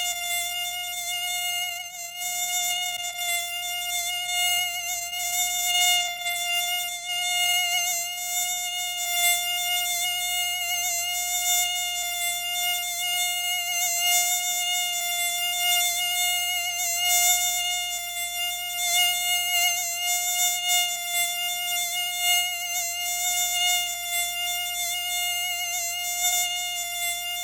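A mosquito's wings buzzing in flight: a steady, high-pitched whine that wavers slightly in pitch and loudness.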